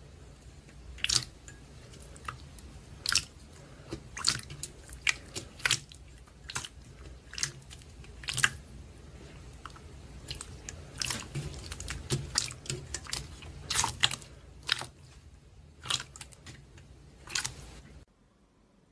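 Slime being squeezed and pressed by hand, giving irregular crisp crackles and pops, a few of them louder, over a low hum; it stops abruptly near the end.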